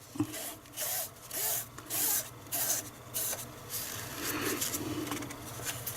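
A soft rag dampened with alcohol rubbed back and forth over the thermal print head of a Zebra LP2844 label printer: a run of short scrubbing strokes, about two a second, cleaning residue off the head.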